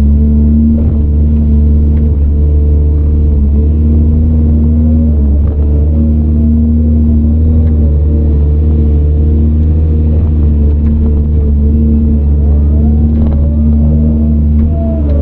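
Diesel engine of a CAT 395 excavator running steadily and loudly, heard from inside the operator's cab. A fainter whine wavers up and down in pitch about five seconds in and again near the end.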